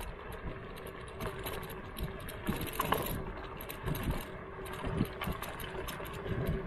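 Slidefox NT suspended electric kick scooter rolling over a rough, bumpy road surface: steady rolling noise with frequent rattles and knocks from the scooter's deck and frame.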